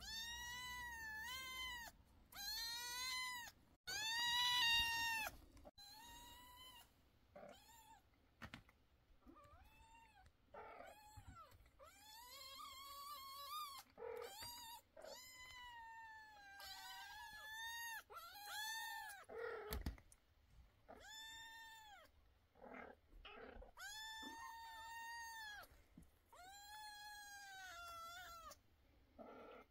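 Young kittens meowing over and over. Each call is high and thin, often rising then falling in pitch, and lasts from a fraction of a second to about two seconds, with short gaps between them.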